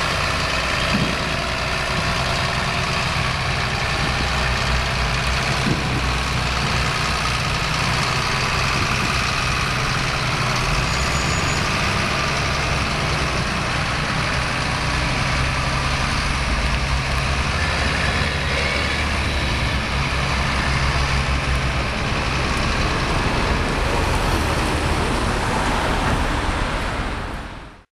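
Heavy diesel engines of a John Deere 7710 tractor and a CAT 966H wheel loader running steadily as the machines move over the site. The sound fades out near the end.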